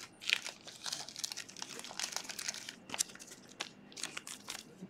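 Foil wrapper of a Panini trading-card pack crinkling and crackling as it is handled, a continuous run of quick sharp rustles.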